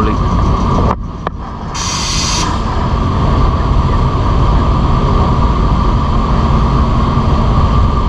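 Steady low mechanical rumble with a constant whine over it, dipping briefly about a second in, with a short burst of hiss around two seconds.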